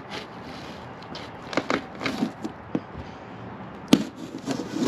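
Cardboard shipping boxes being handled and opened: irregular knocks, scrapes and rustles, with a sharper knock about four seconds in.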